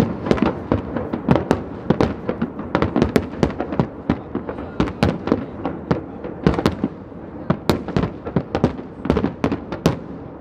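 A barrage of aerial firework shells bursting in quick succession, several bangs a second over a continuous rumble, thinning out near the end.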